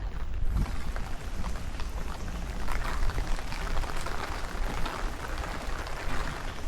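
Rain falling steadily, many small drops ticking and pattering on surfaces, with a low wind rumble underneath.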